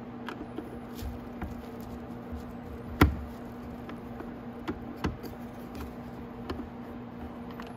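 Small clicks and knocks of a screwdriver and hands on the hard plastic housing of a motorcycle headlight assembly as its screws are taken out, with one sharp click about three seconds in and another about five seconds in. A steady low hum runs underneath.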